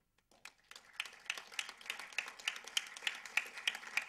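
Audience applauding: a few scattered claps that swell into steady applause within about the first second.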